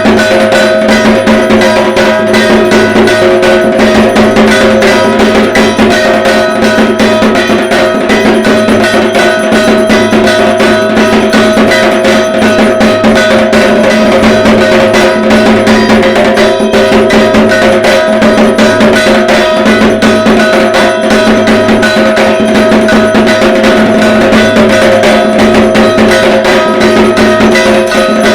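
Dhak, the large Bengali barrel drum played with sticks, drummed in a fast continuous rhythm, with a steady metallic ringing running alongside the strokes.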